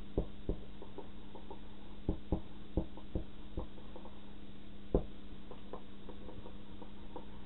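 Whiteboard marker writing on a small handheld whiteboard: irregular short taps and scratches as the tip strikes and drags across the board, over a steady low hum.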